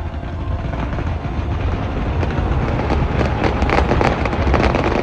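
Fireworks going off in a dense barrage: a continuous low rumble with rapid crackling reports that thicken and grow louder through the second half.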